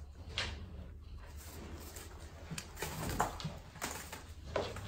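Puppies scrabbling about on newspaper: a string of short scratchy rustles and scrapes, over a steady low hum.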